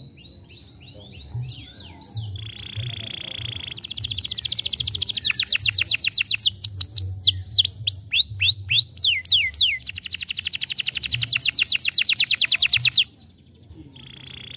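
Domestic canary singing: a held whistled note, fast rolling trills and a run of sweeping down-slurred notes, then a long rapid trill that cuts off about thirteen seconds in, with the song starting again a moment later.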